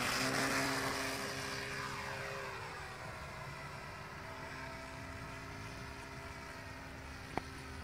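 Scratch-built foamboard RC plane's motor and propeller whining through takeoff and climb-out, fading over the first few seconds as it flies away, then holding steady and distant. A single short click near the end.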